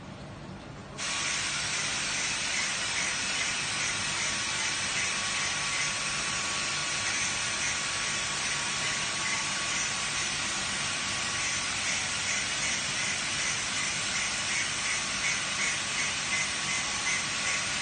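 A steady hiss switches on suddenly about a second in and runs on evenly, with a faint steady tone beneath it.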